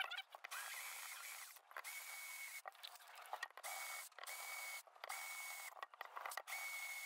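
Power drill boring out the rivets of a die-cast metal housing, run in repeated bursts of about a second with short pauses between them, its motor whining at a steady high pitch.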